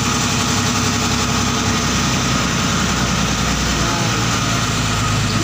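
A motorized outrigger bangka's engine running steadily, with rushing water and wind over it. The engine note shifts about four seconds in.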